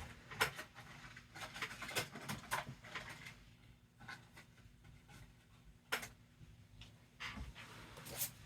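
Paper cash and envelopes being handled at a desk: soft, irregular rustles, taps and small clicks, with a clearer tap about six seconds in.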